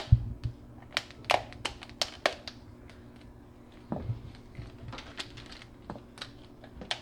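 Plastic tube and handle sections of an electric aquarium gravel vacuum clicking and tapping as they are handled and slid together: irregular light clicks, with a dull knock at the very start and another about four seconds in.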